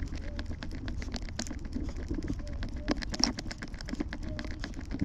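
Wind buffeting an action camera's microphone outdoors: a steady low rumble with many irregular crackles and clicks.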